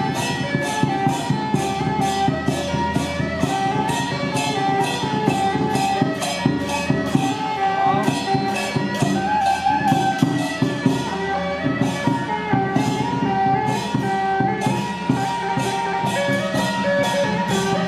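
Traditional festive procession music: a melody of held notes over quick, steady cymbal and drum beats, about three strokes a second.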